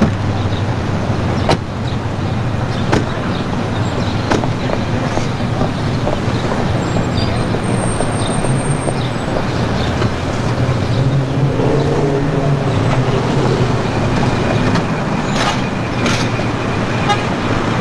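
Car and van engines running on a street, with a few sharp knocks in the first few seconds like car doors shutting, and a horn toot.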